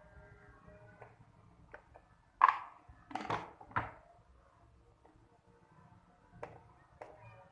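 Kitchen utensils clinking and knocking against dishes in a few separate strikes. The loudest, about two and a half seconds in, rings briefly; a quick cluster follows just after three seconds, with lighter ticks near the end. They come as a blended herbal mixture is being strained and stirred.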